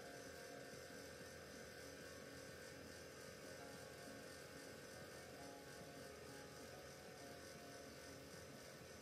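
Near silence: a faint, steady electrical hum with a low hiss.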